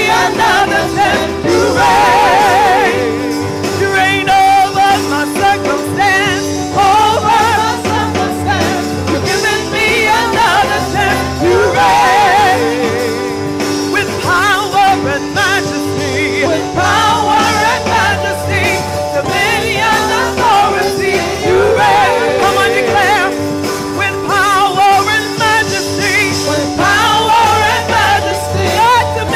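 Woman singing a gospel worship song into a microphone with a strong vibrato, over sustained electric keyboard chords.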